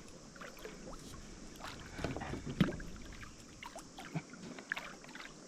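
Small knocks and splashes at a kayak's side while a hooked kingfish is brought alongside to be grabbed by the tail, scattered through, the loudest about two and a half seconds in.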